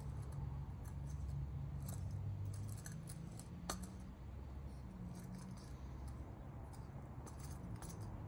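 Light metallic clicks and scrapes as a small folding backpacking stove is screwed onto a gas canister and its thin pot-support arms are handled, with one sharper click about four seconds in.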